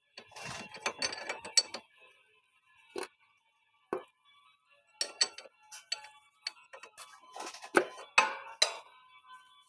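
Irregular sharp metallic clinks and knocks of tools and parts being handled, in clusters near the start and near the end with only two single knocks between.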